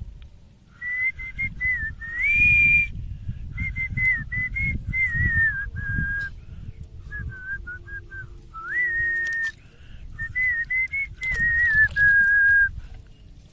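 A person whistling a tune in short phrases, the note wavering and sliding between pitches with brief pauses, over a low rumbling noise.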